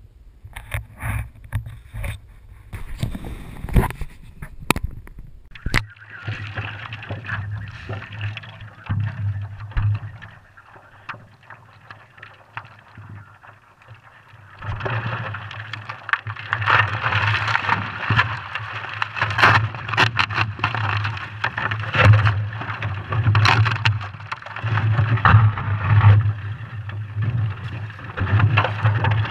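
A few seconds of sharp knocks and crunches, then water lapping and splashing against a stand-up paddleboard's nose as it is paddled across open water, louder in the second half.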